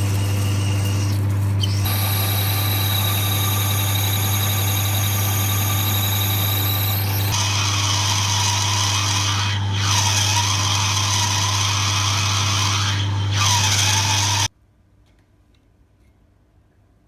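Electric welding arc buzzing steadily with a strong low hum and a high whine, turning rougher and crackling about halfway through, then cutting off abruptly as the arc is broken.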